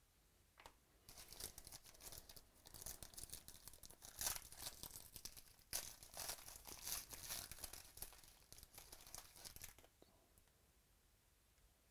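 Gold foil trading-card pack wrapper being torn open and crinkled by hand: an irregular run of crackling rustles from about a second in until near the end.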